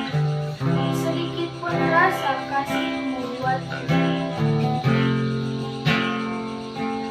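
Acoustic guitar strumming slow chords, a new chord struck about once a second.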